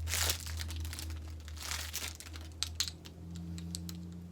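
Packaging of a three-piece makeup brush set crinkling and rustling as it is torn open and the brushes are unwrapped. The crinkling is busiest in the first three seconds, with a few small clicks near the end.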